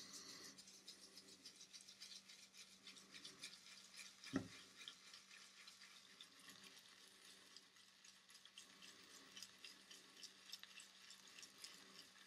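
Faint, fine crackly swishing of a wet Starwisp synthetic shaving brush swirled on a tub of Grooming Dept Kairos tallow shaving soap, loading the brush with soap. There is one soft knock about four seconds in.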